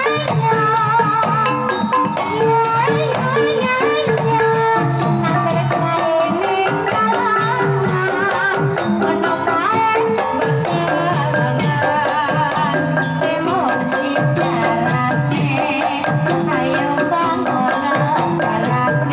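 Javanese Banyumasan gamelan playing a tayub piece: kendang hand drum patterns and struck bronze kettle gongs under a sinden's ornamented, wavering vocal line.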